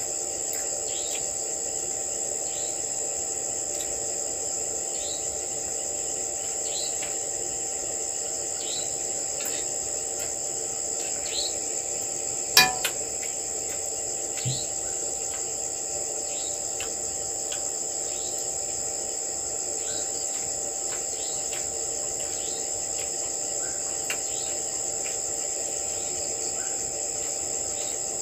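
Steady high-pitched chorus of crickets and other insects, with short falling chirps every second or two. One sharp knock about halfway through, and a fainter one shortly after.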